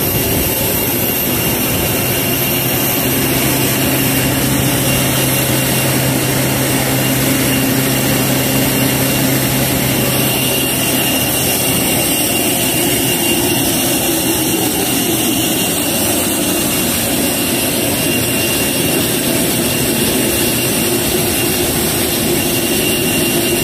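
Loud, steady drone of engine and turbine machinery during aircraft refuelling, with a thin high whine and a low hum that stops about halfway.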